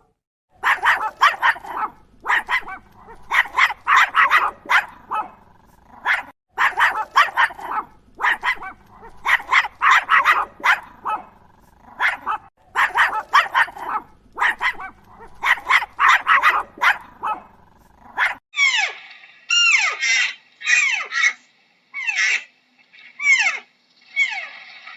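A dog barking in quick runs of short barks with brief pauses between them. About eighteen seconds in, the sound cuts to a series of short, high calls that each fall in pitch.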